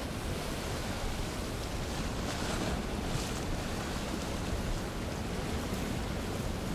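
Surf washing into a rocky tide pool: a steady rush of water noise, with a stretch of brighter splashing about two to three seconds in.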